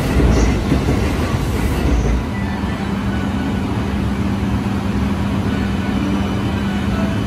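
E531 series AC/DC electric multiple unit running into the platform, its wheel rumble dying away as it stops about two seconds in. A steady hum from the standing train follows.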